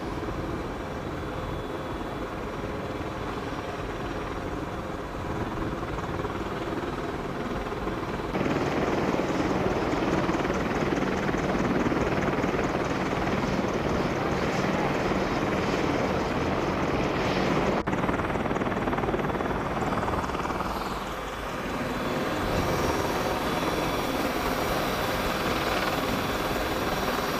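Helicopter running: a steady mix of turbine whine and rotor noise, louder from about eight seconds in, with a short dip near the end.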